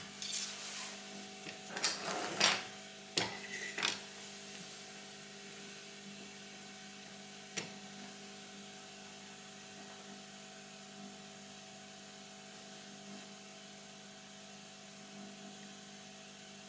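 Small tools and parts being handled on a workbench: a few sharp clicks and short rattles in the first four seconds, then one more click about seven and a half seconds in. Under it a steady electrical hum with a faint high whine.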